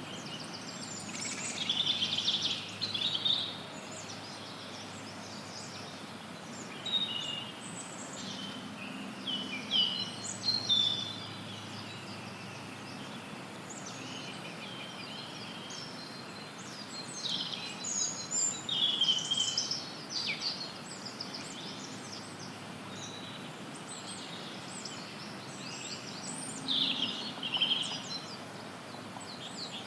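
Songbirds singing and chirping in bouts of quick, high trills and calls, about four bouts in all, over a steady hiss of added noise.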